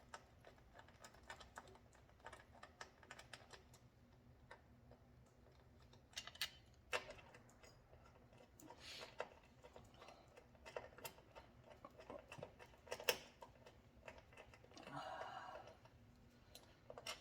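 Scattered light metallic clicks and ticks of a small ratchet backing out the small bolts of a mini bike's final drive case, with the bolts handled between turns and a short rattle near the end.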